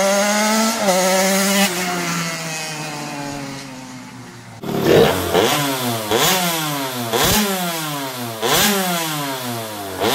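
KTM 85 two-stroke engine on a custom quad bike revving. The note first climbs, then falls and fades away. Then, starting abruptly a little under halfway, it revs up over and over, each climb in pitch ending in a sharp drop about every second and a half.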